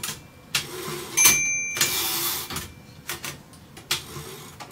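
Royal KMM manual typewriter's carriage-return and line-space lever thrown: a sharp strike with a short ringing ding about a second in, then the carriage rattling as it slides back to the start of the line, followed by a few light clicks of the mechanism.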